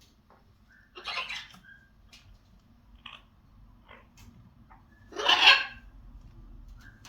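Pet parrot giving two harsh squawks, the second louder, with a few short whistled chirps between them.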